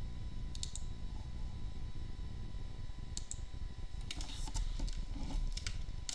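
A few sharp computer clicks in small clusters, from keys and buttons being pressed while searching on the computer, over a steady low hum.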